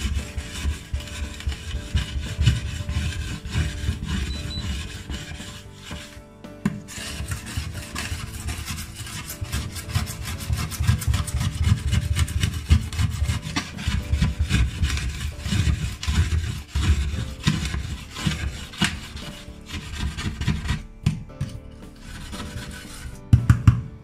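A metal scraper blade pushed in quick, repeated strokes over a wet, soapy ceramic glass hob, giving a gritty scraping as it lifts baked-on residue off the glass.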